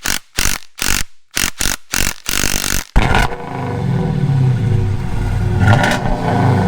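An engine: a string of short, sharp bursts for about three seconds, then it runs steadily from about three seconds in, with a brief rev near six seconds.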